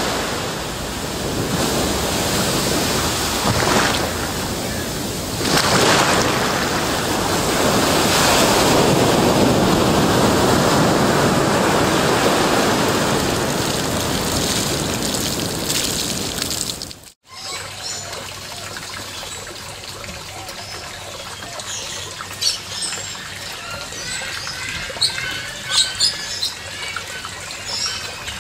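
Loud, steady rushing water, like surf or a waterfall, cuts off suddenly about two-thirds through. It gives way to a quieter trickle of water with scattered small clicks and chirps.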